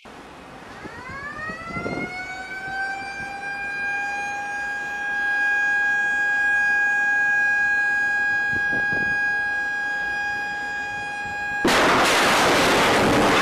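A tone with several overtones glides up in pitch and levels off into a steady high whine that holds for about ten seconds. Near the end it is cut off by the sudden loud rush of a missile's rocket motor as the missile launches from the warship's forward vertical launch system.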